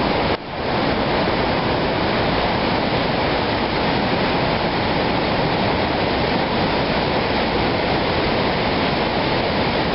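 Whitewater rapids of Lynn Creek rushing steadily, with a brief dip in level about half a second in.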